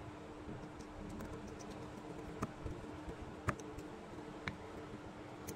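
A few sharp small clicks over a steady low hum. The three loudest clicks come about a second apart in the middle.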